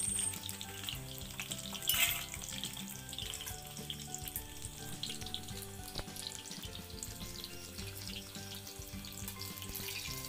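Chickpea-flour-battered capsicum deep-frying in hot oil in an aluminium kadai: a steady, dense crackling sizzle. A brief louder burst of sizzle comes about two seconds in.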